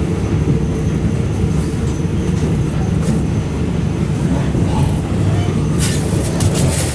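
A passenger sleeper train running on the rails: a steady low rumble, with a few sharp clatters near the end.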